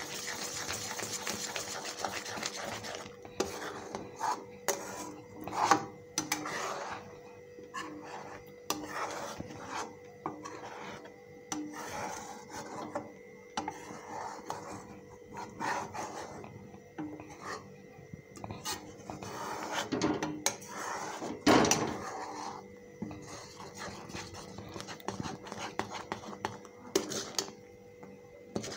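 A spatula scraping and stirring against the bottom and sides of a metal pan of hot milk, irregular strokes as milk powder is mixed into the boiled milk, with a couple of louder knocks against the pan.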